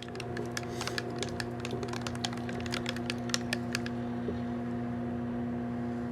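An electrical appliance switches on abruptly and hums steadily, with a run of light, irregular clicks over the first four seconds.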